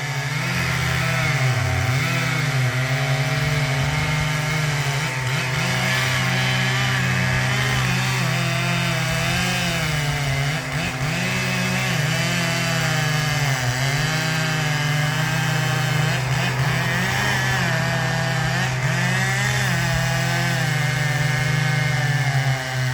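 Chainsaw running steadily under load as it cuts into the base of a large tree, its engine pitch wavering up and down as it works through the wood. This is the felling cut that weakens the trunk so the tree can be pulled over by a rope.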